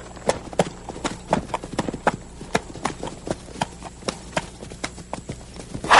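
Horse's hooves clip-clopping on a dirt track as it is ridden along, a quick run of sharp hoofbeats at about three a second.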